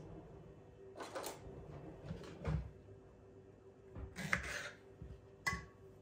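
A kitchen knife being handled and cutting a banana on a wooden cutting board: several scattered soft knocks and rustles, then one sharper click that rings briefly near the end.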